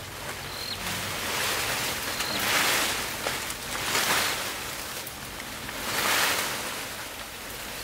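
Leaves and tall grass rustling in three swells, each a second or so long and a couple of seconds apart.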